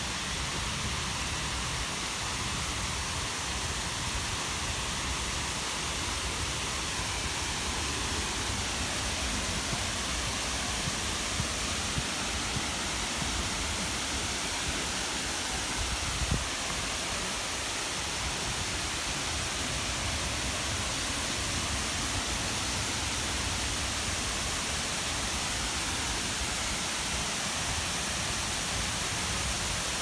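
Steady rushing of the Shiraito Falls, a broad curtain of many thin waterfalls spilling down a rock cliff into a shallow, rocky stream.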